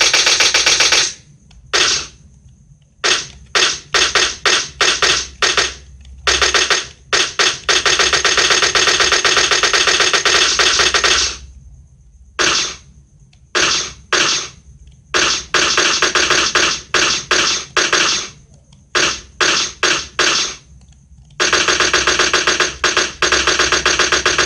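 Machine gun sound effect: rapid automatic fire in long sustained bursts and short bursts of a few rounds, with brief silences between them.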